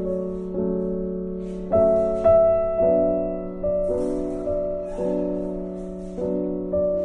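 Background piano music: slow, sustained chords struck about once a second, each left to ring and fade.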